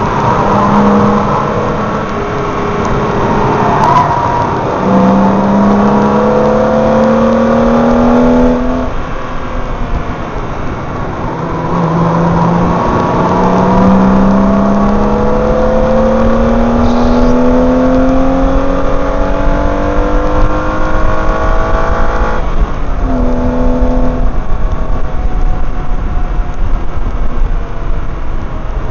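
BMW M3 engine pulling hard under full acceleration, its pitch climbing through long runs and dropping at each gear change, about 9 and 22 seconds in, over constant wind and tyre roar.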